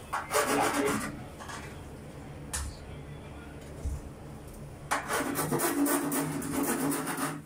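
Rubbing and scraping noise in two spells: a short one about half a second in, then a longer stretch of rapid scraping strokes over the last two and a half seconds, with a couple of light knocks in between.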